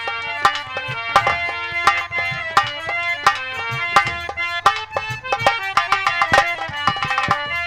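Instrumental nautanki folk music: fast drum strokes under held melody notes that step from pitch to pitch.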